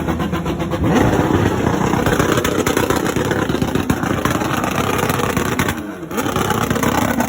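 Motorcycle engine running hard and revving, with a rapid firing pulse; the revs drop briefly about six seconds in and then climb again.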